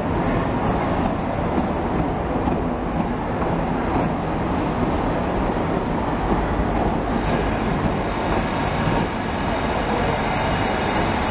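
LNER High Speed Train (HST) with diesel power cars and Mk3 coaches moving slowly through the station: a steady rumble of engine and wheels on the rails. A faint high squeal comes in briefly about four seconds in.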